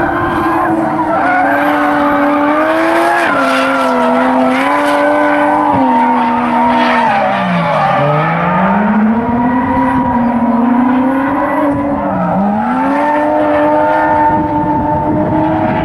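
Drift car engine held high in the revs while its rear tyres squeal through a long slide; the revs drop sharply near the middle and again later, each time climbing straight back.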